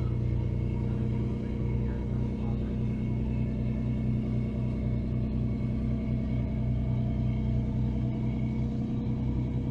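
A large boat's engine running steadily: a low, even drone with no change in pace.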